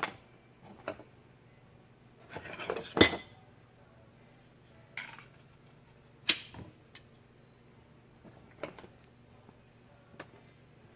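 Small ball-peen hammer tapping a bent metal remote mirror handle straight on a workbench: scattered metallic knocks and clinks at irregular intervals, with a short rattly flurry ending in the loudest strike about three seconds in.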